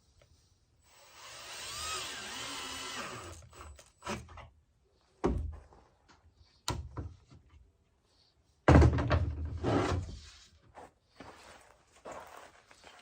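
Drill boring into wood through a Kreg pocket-hole jig for about two and a half seconds, its pitch bending as the speed changes. Then come single knocks of wood and tools being handled, and a second loud, sudden burst about nine seconds in.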